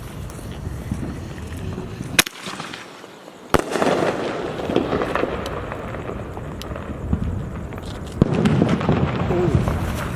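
Consumer fireworks going off: a sharp bang about two seconds in, another a second and a half later followed by a stretch of crackling, and a third bang near the end followed by more crackling.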